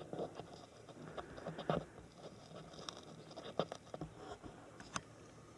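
Faint, scattered light clicks and rustling, a few seconds apart; no gunshots.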